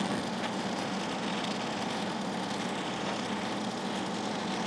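Oxyacetylene torch flame hissing steadily against a steel plate, with a faint steady low hum underneath.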